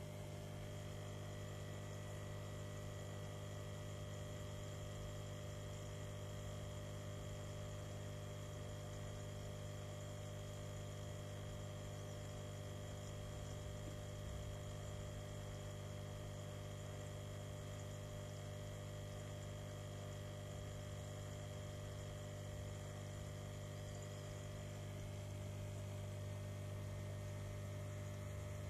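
Steady electric hum of a small saltwater aquarium's homemade protein skimmer pump running, with a faint hiss of the fine air bubbles it pours into the tank.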